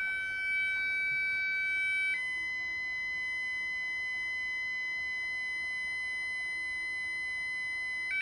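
Texecom Premier Elite alarm keypad sounding its steady exit tone after the system is armed. It starts as two tones, changes to a single steady tone about two seconds in, and ends in a few quick short beeps near the end.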